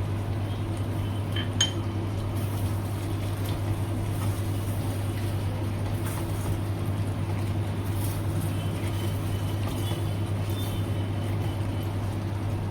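A spoon or utensil clinks sharply against a cooking pot about a second and a half in, with a few faint ticks afterwards, over a steady low hum.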